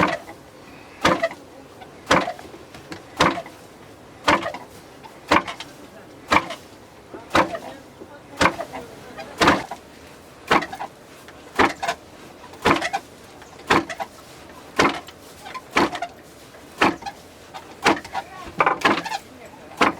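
Barley being milled with a traditional hand-worked grain mill or pounder: a steady rhythm of sharp knocks, about one a second, some of them doubled.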